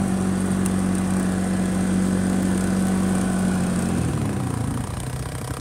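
Engine of a side-by-side UTV running steadily under way, heard from the vehicle's seat. About four seconds in, the engine note drops as the machine slows.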